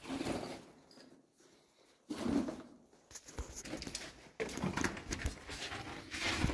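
Irregular bursts of shuffling and scraping as a person crawls through a tight rock passage in a cave, with clothing and body rubbing against the rock. The sound grows more continuous near the end.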